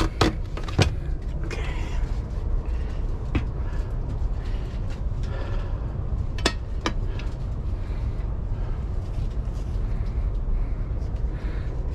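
Steady low hum inside a standing passenger train coach, with a few knocks at the start as a laptop is set down on a plastic fold-down seatback tray, and a few sharp clicks later on.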